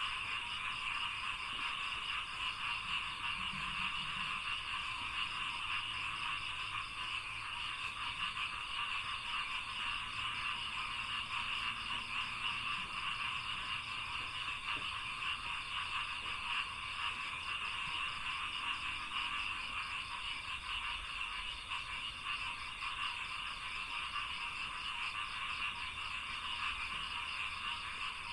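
Dense, continuous chorus of many frogs calling together in a rice paddy, a steady mass of rapid croaking pulses with no break.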